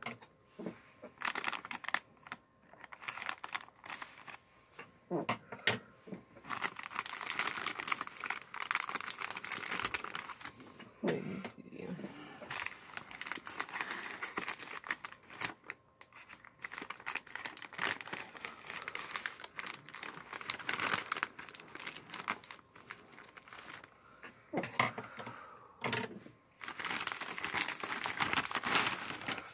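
A white plastic poly mailer crinkling and rustling as it is handled, cut along one edge with scissors, and torn open by hand, with irregular crackles throughout.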